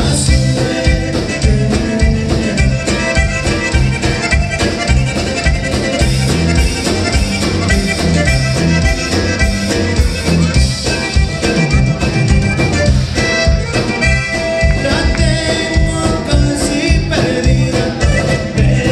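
Live conjunto band playing an upbeat tune: button accordion over bajo sexto, bass and drums with a steady beat, heard through the club's PA.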